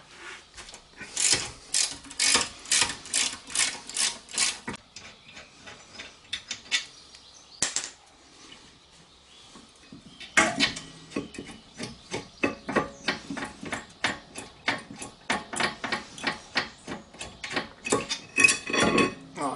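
Ratcheting wrench clicking in two quick runs, the second one longer, as the caliper carrier's bolts are undone.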